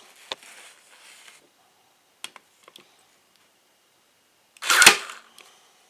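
Hyper Tough staple gun driving a staple into a pine board: one loud, sharp snap about five seconds in, after a few faint clicks as the tool is handled and positioned.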